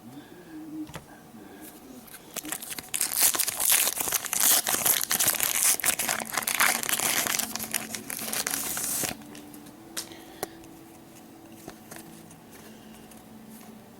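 A trading card pack's wrapper being torn open and crinkled. It is loud and dense for about six seconds, starting about three seconds in, with faint rustles and ticks before and after.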